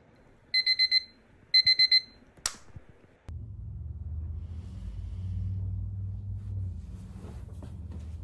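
Wake-up alarm beeping in two bursts of four quick high beeps, followed by a single click. A steady low hum starts about three seconds in and runs on.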